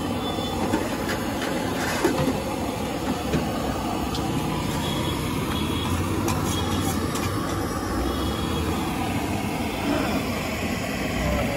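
Steady street ambience: a constant low rumble of passing traffic, with a few faint clicks.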